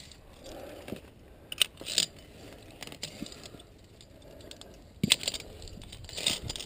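Via ferrata carabiners clinking and scraping on the steel safety cable, with a handful of sharp metallic clicks.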